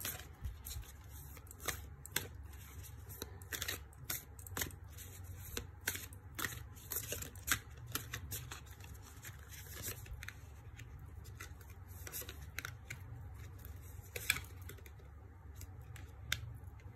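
Tarot deck being shuffled by hand: a string of quick papery rustles and card snaps, thinning out later as cards are laid on the cloth, with one sharp snap about fourteen seconds in. A steady low hum runs underneath.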